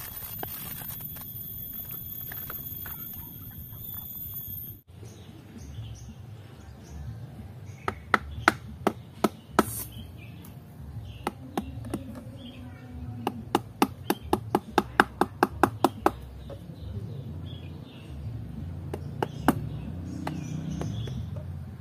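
Husked coconut being struck with a hand-held tool to crack its shell: sharp knocks, a few single ones, then a quick run of about four or five a second, then one more near the end. In the first few seconds, coconut husk fibre is scraped with a blade.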